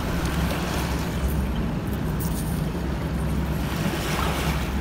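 Steady river-foreshore background: a low, constant engine drone under a hiss of wind and lapping water.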